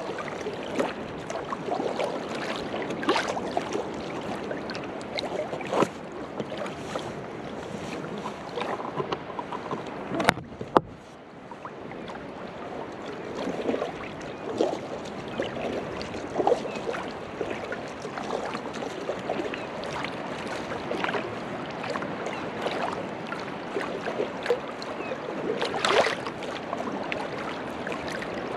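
Small waves lapping and splashing against a fishing kayak's hull in irregular little slaps, with one sharp knock about ten seconds in.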